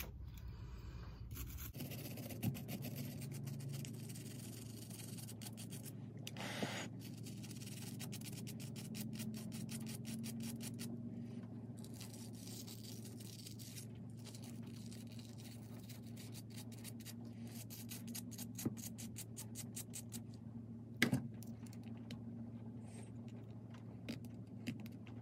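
A small hand wire brush and then a hobby knife scraping corrosion off a badly corroded model train wheel: faint, rapid scratching strokes with a few sharper clicks.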